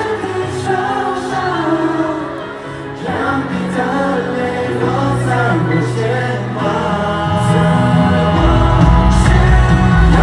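Live band performance of a Mandopop ballad with sung vocals over sustained keyboard and bass chords; the drums and bass come in fuller and louder about eight seconds in.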